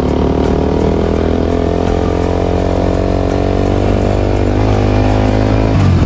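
Motorcycle engine running steadily while riding, its note briefly dropping near the end.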